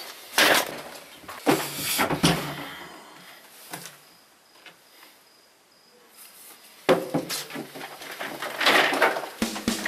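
A wooden stick striking a laptop and tabletop. A sharp knock comes at the start and a few more follow, then there is a quiet stretch, then a sudden loud bang about seven seconds in followed by a run of rough knocks.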